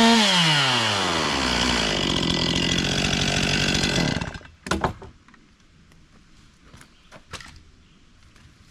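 Chainsaw engine coming off full throttle, its pitch falling steadily to idle, then idling for a few seconds before it cuts out about four seconds in. A few faint knocks and clicks follow.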